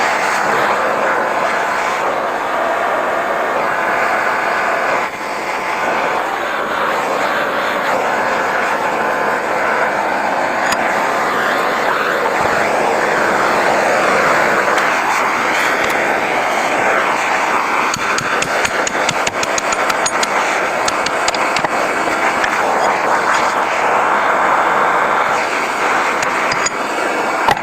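Handheld blowtorch flame running with a steady, loud hiss, played on a rust-frozen forged post vise to heat it loose. A run of light ticks comes about two-thirds of the way through, and the flame cuts off suddenly at the end.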